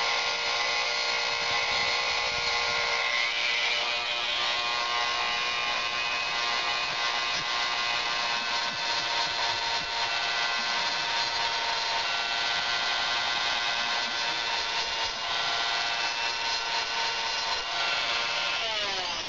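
Handheld Dremel-type rotary tool running steadily at high speed, its sanding drum grinding down a small wooden dowel knife handle: a constant high whine with a sanding hiss, spinning down in the last second.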